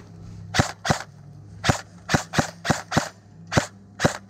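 Airsoft rifle firing single shots: about nine sharp cracks in an uneven semi-automatic string, a third to half a second apart.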